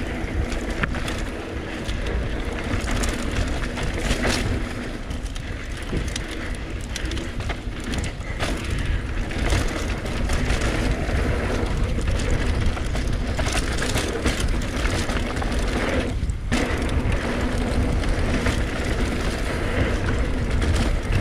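Mountain bike descending a dirt singletrack trail, heard from the rider's own camera: wind buffeting the microphone, tyres rolling over dirt, and frequent rattles and knocks as the bike hits bumps and jumps.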